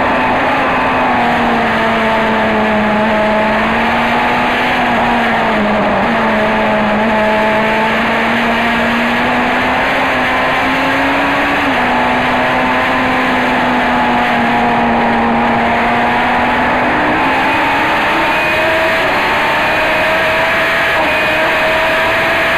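Racing car engine heard from onboard, running hard at nearly constant revs. Its pitch wavers slightly, with a small dip about six seconds in and a small downward step near twelve seconds.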